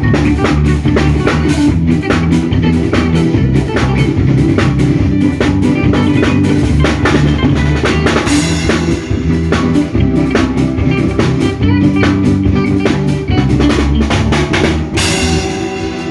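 Band music with a drum kit keeping a steady beat under guitar and bass. A cymbal crash comes near the end, and the playing then eases off.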